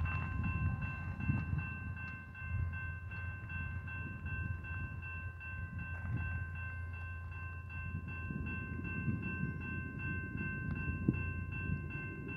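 Railroad grade-crossing warning bell ringing steadily as the crossing gates lower, over a low, uneven rumble from the approaching BNSF freight train.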